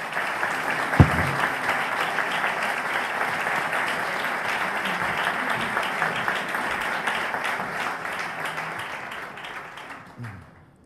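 Audience applauding, a dense steady clapping that fades away near the end, with a single dull thump about a second in.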